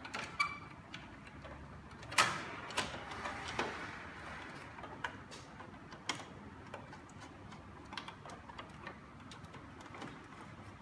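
Scattered light clicks and taps of a screwdriver and plastic parts being handled on an air-conditioner indoor unit, the sharpest about two seconds in.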